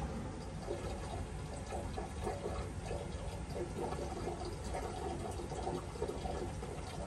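Cooling water gurgling and trickling through a reflux condenser's rubber hoses, in short uneven blips over a steady low rush of fume-hood air.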